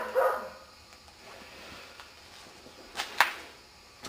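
A dog gives a short bark right at the start, then two sharp cracks come close together about three seconds in.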